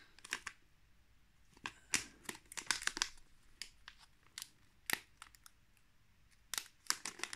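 Crinkling and crackling of a small metallized plastic bag being picked at and pulled by hand as someone tries, without success, to tear it open. The crackles come irregularly, in several short clusters.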